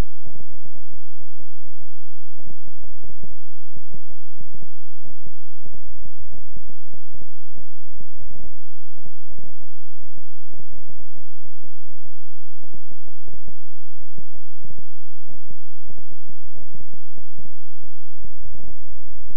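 Electronic healing-frequency tone track: a loud, steady low hum made of several held low tones, overlaid with rapid, irregular low thumping pulses, several a second.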